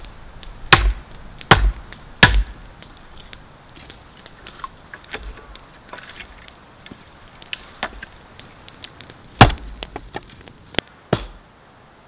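Knife chopping into a wooden stick: three sharp chops a little under a second apart near the start, small clicks and scrapes in between, then two more chops near the end.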